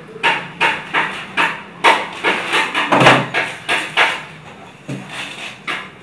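Repeated knocking, sharp hits at about three a second that thin out near the end.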